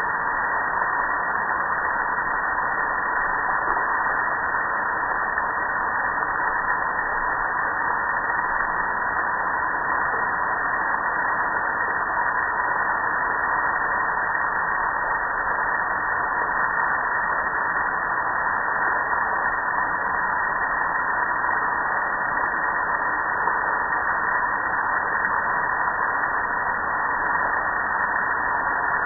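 Steady rushing of water spraying and pouring over a gas grill, splashing off the metal without a break.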